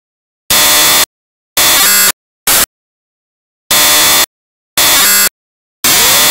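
Loud bursts of static hiss cutting sharply on and off, each about half a second long and roughly one a second, with dead silence between them. The third burst is shorter, and a longer silent gap follows it. It is the noise of a lost or broken signal while the picture is blank grey.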